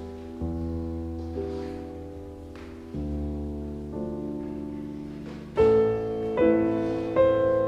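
Slow background piano music: held chords that change every second or so, growing louder with firmer struck notes about two-thirds of the way through.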